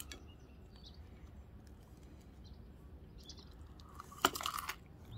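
A person biting into a pancake wrap filled with egg and bacon: a short cluster of sharp clicks and crunches about four seconds in, against otherwise quiet background.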